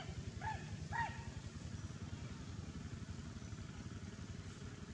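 An engine running steadily, heard as a low, rapid pulsing, with two short rising-and-falling chirps about half a second and one second in.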